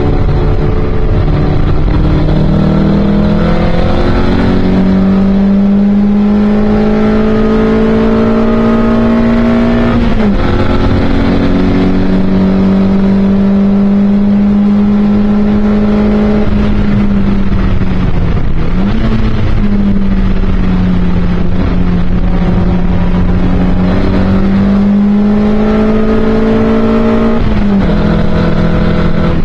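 Toyota MR2 Mk1 race car's four-cylinder engine at racing speed, heard from inside the cockpit. The engine note climbs for the first ten seconds, dips sharply at about ten seconds, then holds steady. It dips briefly again around eighteen seconds, climbs once more and drops near the end.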